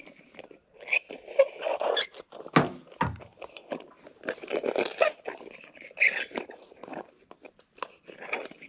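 Irregular clicks, knocks and scrapes of a clamp-on heat lamp being handled and its loose fitting worked by hand, with two heavier knocks about two and a half and three seconds in. Hens cluck now and then.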